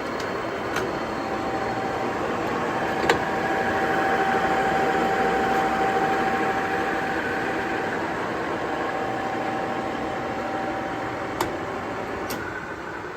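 JET GH1460ZX 14x60 toolroom lathe spindle and geared headstock running at 820 RPM, a steady mechanical hum with a held whine. There is a sharp click about three seconds in and another near the end.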